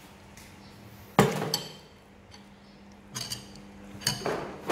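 Metal spoons clinking against ceramic bowls and plates as food is served: one sharp ringing clink about a second in, the loudest, then lighter clinks around three seconds and near the end.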